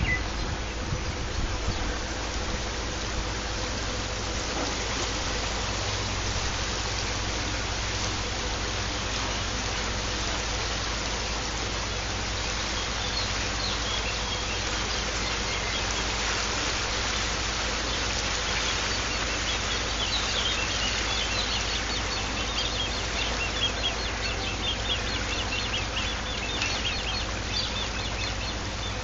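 Steady lakeside ambience: a hiss of wind and water over a low, even hum. From about halfway through comes a dense run of short, rapid, high chirps from the reeds and trees on the shore.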